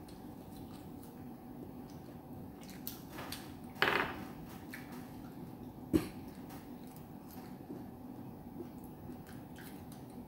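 Close-up eating sounds of fruit being peeled by hand and eaten: light scattered clicks and mouth sounds, with a brief louder noise about four seconds in and one sharp click at about six seconds.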